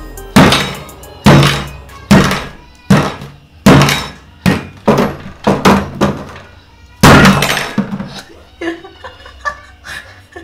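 Soft chapati dough being slapped down hard onto a wooden worktop again and again during kneading: a heavy thud roughly every second, coming faster in the middle and giving way to lighter knocks near the end.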